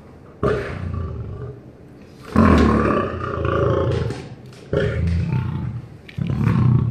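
A lion roaring: four loud, drawn-out roars in a row, each a second or two long and about two seconds apart.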